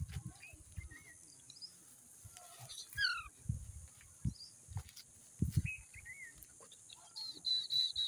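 Alexandrine parakeets giving short, soft chirps and whistles that slide in pitch, scattered through, then a rapid high chattering trill starting near the end. Low thumps on the microphone come between the calls.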